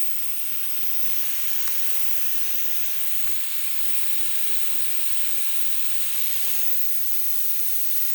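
Compressed air hissing steadily out of a leak in a homemade air compressor's lines while its tank fills, which the owner takes to be coming from the pressure gauge. The two refrigerator compressors driving it are too quiet to be heard under the hiss.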